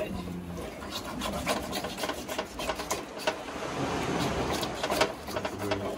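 Knife sawing through a stingray's wing flesh and cartilage: a run of short, irregular rasping strokes.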